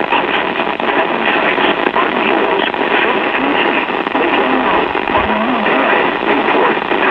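Radio broadcast heavy with static and noise, cut off above about 4 kHz, with a voice faintly buried under the noise.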